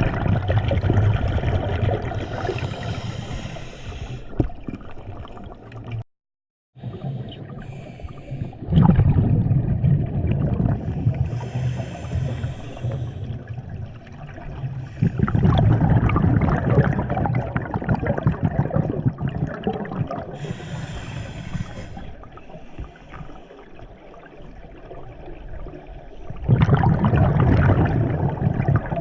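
Scuba diver breathing through a regulator underwater: a short hiss on each inhale alternates with a loud rumble of exhaust bubbles on each exhale, a cycle about every nine seconds. The sound cuts out briefly about six seconds in.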